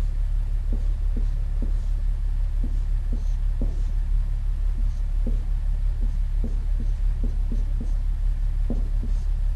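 Steady low electrical hum, with faint short scratching strokes of a pen writing Chinese characters.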